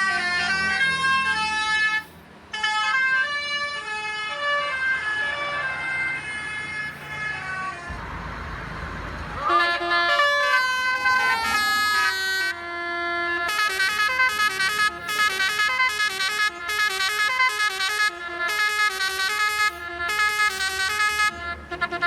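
Indonesian 'telolet' basuri multi-tone bus horns playing melodies, the notes stepping in pitch like a tune, several horns one after another. About a second and a half of rushing noise breaks in near the middle. In the second half the horn plays quick, short staccato notes.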